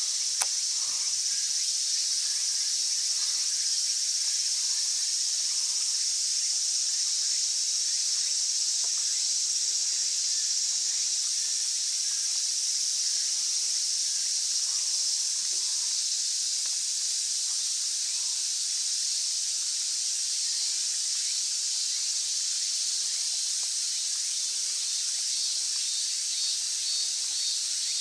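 A dense, steady chorus of cicadas in the summer woods, a continuous high-pitched drone. A single sharp click sounds about half a second in.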